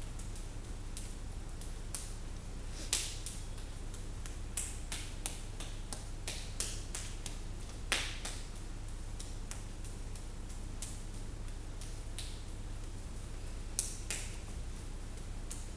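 Sharp slaps of hands and forearms meeting in a two-person Wing Chun partner drill, coming in quick, irregular runs, the loudest about 3 and 8 seconds in. A low steady hum runs underneath.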